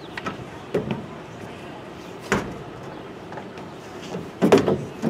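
A few short knocks and thumps close to the microphone over steady outdoor background noise; the loudest comes as a quick cluster near the end.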